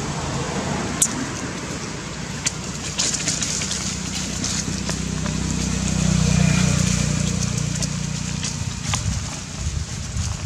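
Low motor vehicle engine hum, swelling to its loudest about six seconds in and then easing off, with scattered sharp crackles.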